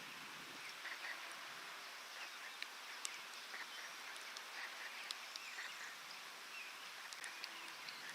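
Steady rain hiss with sharp drip ticks scattered through, and a few faint short bird calls.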